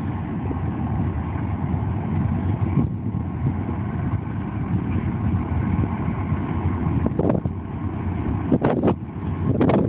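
Steady low rumble of an approaching freight train's EMD SD45 diesel locomotives. Wind buffets the microphone, in short gusts near the end.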